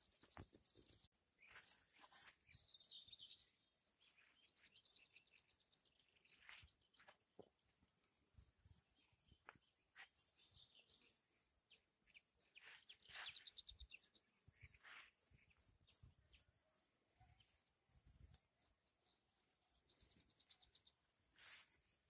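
Faint outdoor ambience: a steady high-pitched insect trill with scattered short bird chirps over it.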